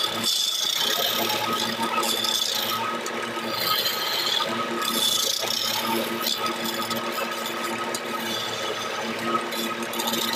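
Wood lathe running steadily with a hum and a fixed whine, while a hand-held turning chisel cuts the spinning gamari wood spindle in spells, a scraping hiss that comes and goes.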